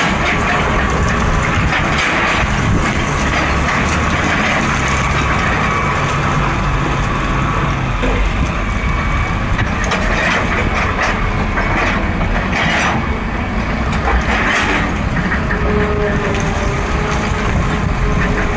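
Excavator working: its diesel engine runs steadily under load, with irregular metallic clanks and scraping from the work.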